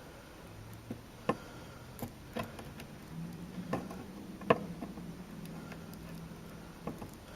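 Scattered light clicks and taps, irregular and about one a second, from small tools and wire being handled at a relay circuit board during soldering, over a faint low hum.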